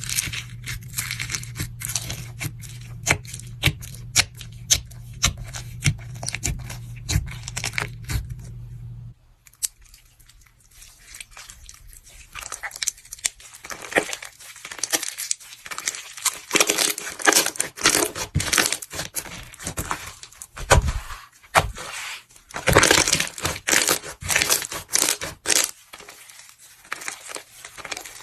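Close-miked crisp crackling and crunching of a brittle or crunchy ASMR material being squeezed and broken apart by hand. The first stretch is sharp separate snaps over a steady low hum; about nine seconds in it cuts to a denser, irregular crackle.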